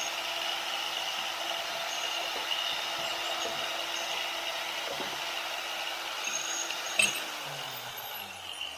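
Angle grinder with a cutoff wheel running with a steady whine, cutting out a crack in cast iron to open it up for welding. About seven seconds in there is a click, and the grinder's pitch falls as it spins down.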